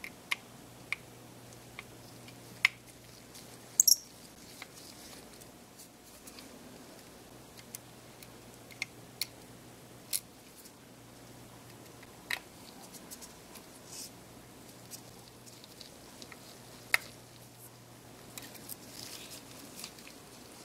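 Irregular small sharp clicks and ticks of metal tools on a Canon 60D camera's mirror box as its tiny screws are taken out with a precision screwdriver and tweezers, over a faint low hum that comes and goes.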